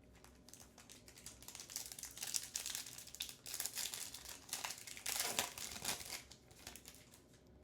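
A trading-card pack's foil wrapper crinkling and tearing as it is opened by hand, in irregular spells of quick crackles, the loudest a little past two seconds in and again past five seconds in.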